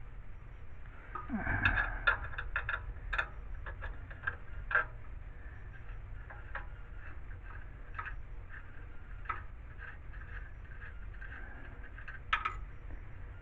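Scattered light clicks and taps from small metal parts being handled, with a louder knock and rattle about two seconds in and another sharp click near the end.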